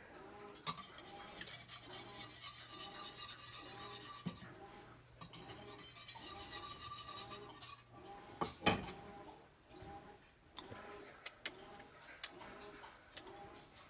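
A utensil stirring a thin sauce in a stainless steel skillet, scraping the pan bottom in steady strokes just under two a second. The stirring stops with a sharp knock about two-thirds of the way through, and a few light clicks follow.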